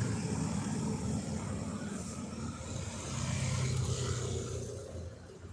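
A motor vehicle passing on a nearby road: a low engine and tyre rumble that swells about three seconds in and fades away near the end.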